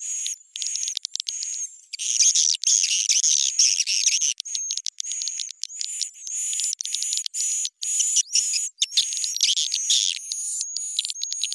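Edible-nest swiftlet lure call, a recording with its pitch and tempo raised: rapid high-pitched twittering chirps and clicking trills in bursts with short gaps, over a thin recurring whistle-like tone. The densest, loudest stretch runs from about two to four and a half seconds in.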